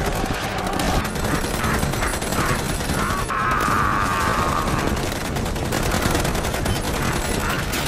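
Film battle soundtrack: sustained rapid automatic gunfire, many shots in quick succession, with a long high cry over it about three seconds in.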